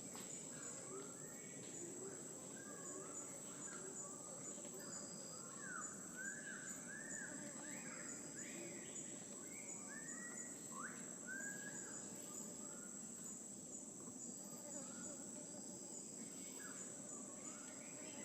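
Tropical forest ambience: a steady high-pitched insect drone with many short whistled bird calls, some sweeping up and some down, busiest in the middle.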